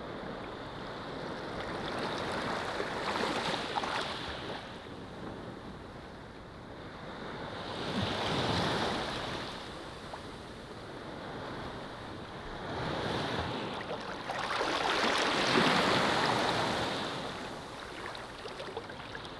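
Ocean waves washing onto a beach, a soft hiss of surf that swells and ebbs in slow surges a few seconds apart, the biggest about fifteen seconds in.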